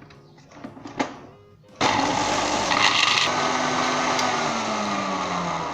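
Electric mixer grinder switching on suddenly a little under two seconds in and running loud at full speed, grinding dry whole spices into powder; its motor tone sinks steadily in pitch over the last couple of seconds. A single click comes about a second in.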